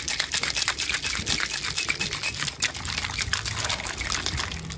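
Ice cubes and liquid rattling hard inside a stainless-steel cobbler cocktail shaker being shaken, a fast continuous clatter that stops near the end.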